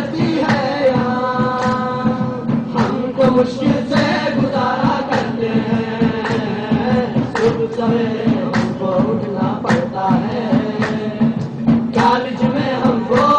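Qawwali performance: singing over a steady beat of sharp hits about once a second.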